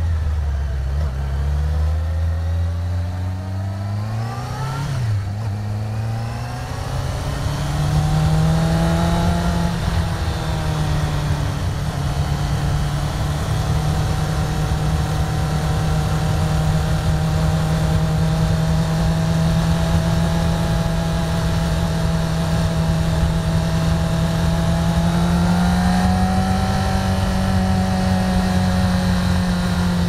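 1999 Yamaha YZF-R6's 600 cc inline-four engine heard onboard, revving up in the first few seconds. Its pitch drops at an upshift about five seconds in, climbs again, then settles into a steady cruise with a slight rise in revs near the end.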